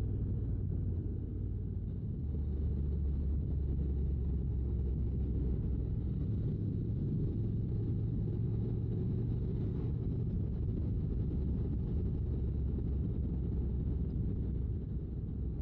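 Honda NC750X motorcycle's parallel-twin engine running at a steady cruise, heard as a low, even drone mixed with wind and road rumble on the on-bike microphone. The sound is muffled, with little above the low end.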